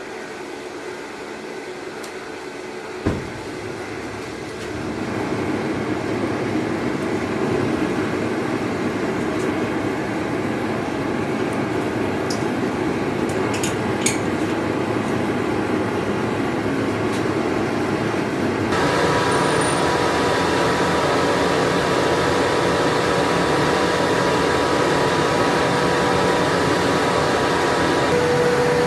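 A forge running with a steady rushing roar. It grows louder about five seconds in and again past halfway, when a steady hum joins it. There is one sharp knock near the start and a few light clicks midway.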